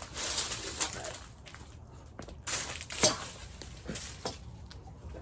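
Test cuts with a newly forged sword: whooshing swings, with a sharp hit about three seconds in as the blade strikes its target.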